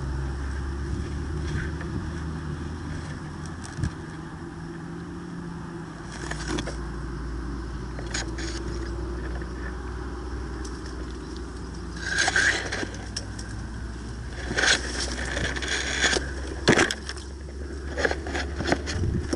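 Steady low rumble of wind on the microphone, with scattered bursts of crunching and rustling and a few sharp clicks, clustered in the second half.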